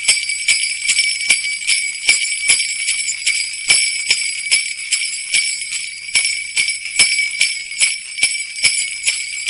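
Sleigh bells jingling continuously, shaken in a steady rhythm of about two shakes a second.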